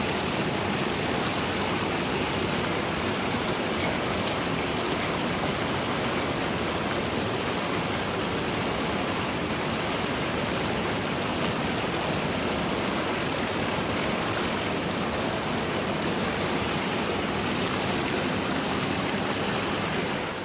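Running water, a steady even rushing with no breaks or changes.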